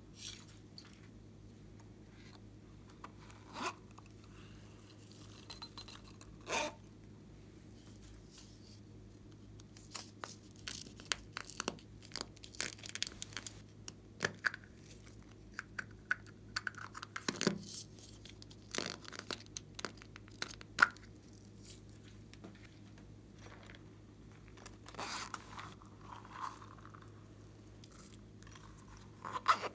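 Small plastic containers handled and opened over a tray of slime, with scattered clicks, crackles and rustles; sequins and beads are shaken out onto the slime near the end.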